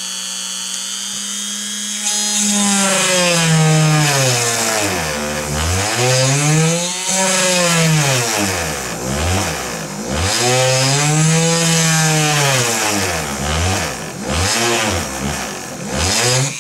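Dremel rotary tool in a drill-press stand running at a low speed setting, drilling a pilot hole through a nylon engine mount. After a steady hum, the bit starts cutting about two seconds in: the sound gets louder and the motor's pitch repeatedly sags and climbs back as the bit is fed in and eased off.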